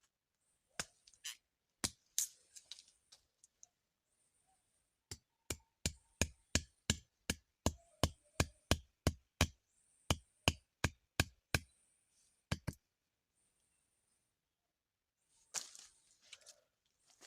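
A run of sharp, evenly spaced chopping strikes, about three a second for some six seconds, after a few scattered knocks. A short rustling noise comes near the end.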